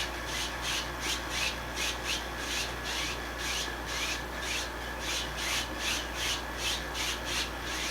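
Brush strokes rubbing back and forth across a canvas, about three a second, blending wet paint together.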